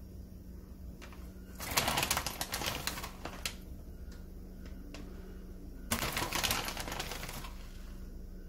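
Two bursts of crinkly rustling, a second or so each, as grated cheese is handled and scattered by hand over a pizza in a frying pan. A steady low hum runs underneath.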